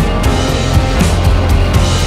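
Loud background music with a fast, steady drum beat of about four hits a second.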